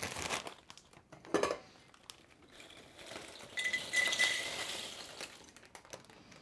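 Bugles corn snacks poured from a crinkly foil bag into a bowl, the pieces clattering and clinking against the bowl for about two seconds, loudest as the first pieces land. The bag crinkles briefly before the pour.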